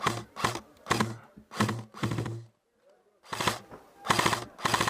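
A run of crunching thuds, about two a second, stopping briefly in the middle: footsteps of a player walking, heard from a helmet-mounted camera.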